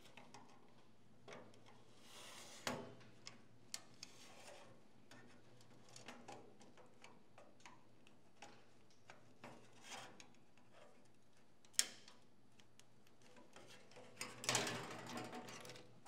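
A small screwdriver prying at the seams of a snap-together plastic typewriter ink-ribbon cassette: faint scattered clicks and scrapes, with a sharper click about twelve seconds in. Near the end comes a longer run of plastic scraping and clattering.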